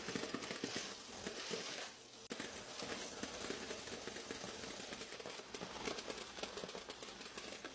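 Glory CP-9 coin counter running, coins clicking rapidly through it as they are fed in. The clicking thins out briefly about two seconds in, then starts again suddenly.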